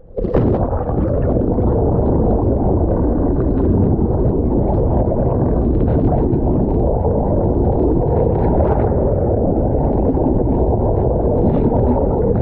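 Water churning and splashing against a camera held at the waterline beside a boat's hull: a loud, steady, muffled rush and gurgle with no high end.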